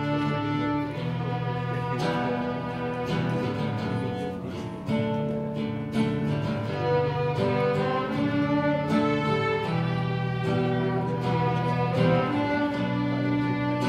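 A small ensemble of young violinists playing a slow melody together in held, bowed notes, with low sustained notes underneath.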